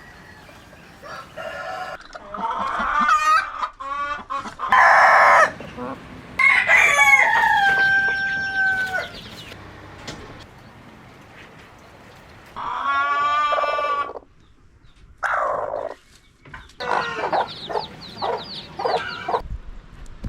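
Chickens calling: a rooster crows one long, held call about six seconds in, among shorter clucks and calls from the flock.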